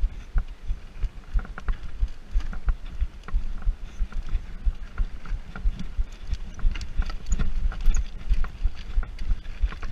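Hardtail mountain bike jolting over a rough, stony dirt trail: an irregular, rapid run of low thumps and knocks with scattered light clicks and rattles.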